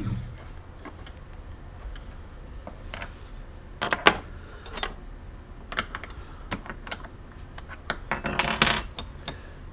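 Scattered light metallic clicks and clinks of clamp hardware being undone by hand, with a denser rattling run of clinks about eight seconds in as a hold-down bolt is turned with a hand tool.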